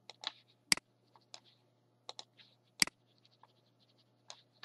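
Scattered sharp clicks and taps of a computer mouse and keyboard, the two loudest about three-quarters of a second in and near three seconds in, over a faint low hum.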